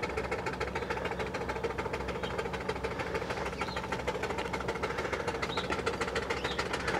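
4-inch scale Fowler live-steam traction engine running along the road, its exhaust beating in a fast, even rhythm and growing a little louder as it draws near.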